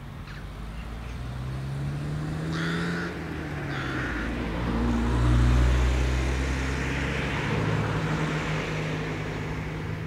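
A passing motor vehicle's engine hum builds to its loudest about halfway through, then eases. Two short rook caws come about three and four seconds in.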